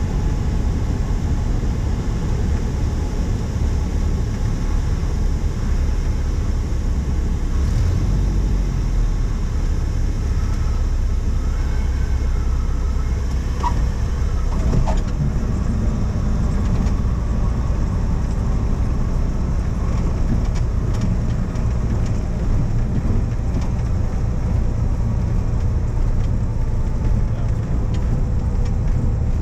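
Piston engine of a single-engine high-wing light plane, heard inside the cabin as a steady drone during the approach and landing.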